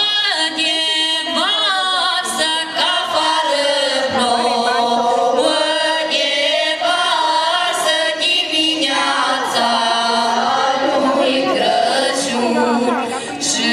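Folk vocal group, mostly women's and girls' voices, singing a Romanian colindă (Christmas carol) together, the notes held long and sung with vibrato.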